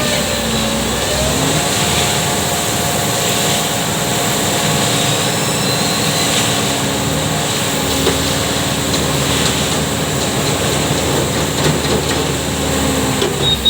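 Heavy machine engine running steadily at a construction site. Its pitch dips and climbs back about a second in, then drops near the end as it throttles down.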